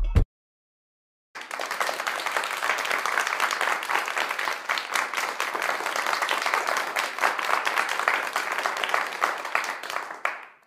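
Applause: many hands clapping together in a dense, steady patter, starting about a second in and fading out near the end.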